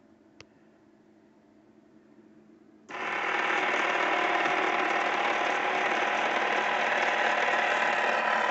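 A faint click, then about three seconds in a 12-volt DC gear motor starts abruptly and runs with a steady mechanical whir, turning the feeder's empty oak dispensing drum.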